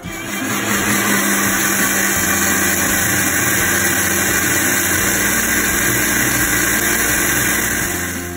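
Electric mixer grinder running, its steel jar blending wheat flour, egg and water into dosa batter: a loud, steady whir that starts at once and dies down near the end.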